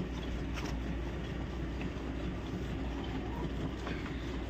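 Hand milking of a cow into a half-full steel bucket, streams of milk squirting into the milk, over a steady low rumble.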